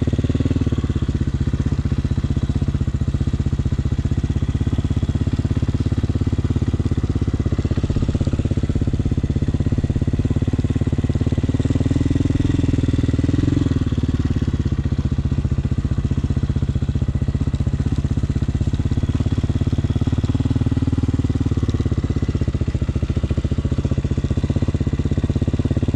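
Hawk 250cc dirt bike's single-cylinder engine running at low speed in first gear through slow, tight turns, its note rising a little about halfway through as the throttle opens.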